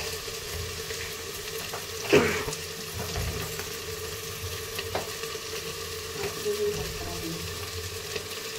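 Steady low sizzle and hiss of cooking on the stove as a khoa-stuffed roti cooks on a hot tawa. About two seconds in, a short sharp sound sliding down in pitch is the loudest moment.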